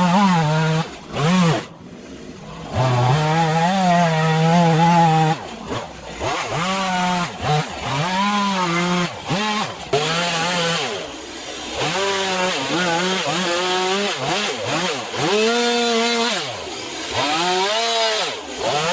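Two-stroke chainsaw cutting spruce, its engine revving up and dropping back over and over as the carving cut is worked. There is a short drop toward idle about two seconds in.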